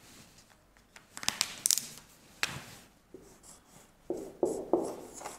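Marker pen writing on a whiteboard: a few bursts of short scratchy strokes and taps as characters are written, with a gap of near quiet between them.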